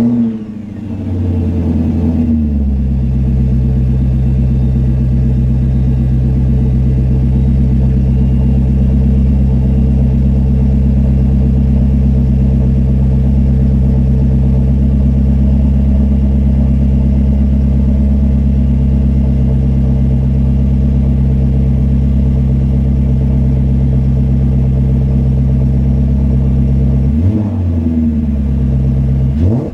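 BMW E39 540i's 4.4-litre V8 idling steadily after settling down from a higher idle in the first couple of seconds. It is revved briefly a few times near the end.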